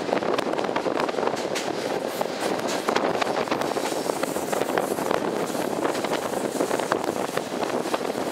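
Passenger train running along the track, heard from an open carriage window: a steady rumble of wheels on rail with a constant scatter of small clicks and rattles, and wind buffeting the microphone.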